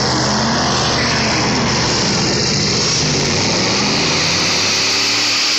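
Car engine held at high revs, loud and steady, its pitch wavering a little, with a steady high hiss over it.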